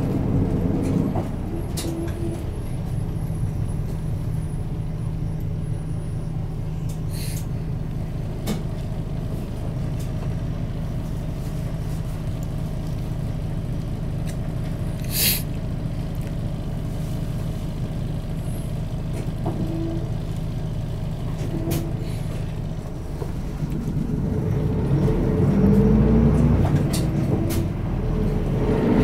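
Isuzu Erga Mio city bus heard from inside the cabin: its diesel engine runs at a steady note while the bus travels at an even pace. There is a short burst of air hiss about halfway through. Near the end the engine pitch rises in two sweeps as the bus accelerates through the gears.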